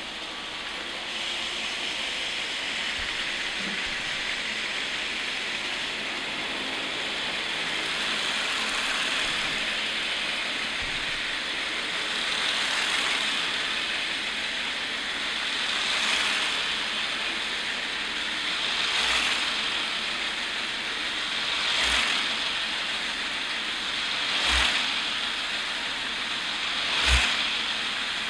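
Electric motors and spinning rotors of a Lego Technic V-22 Osprey tiltrotor model running with a steady whir that slowly grows louder. Over it come swells, each with a low thump, about every three seconds, coming a little faster near the end.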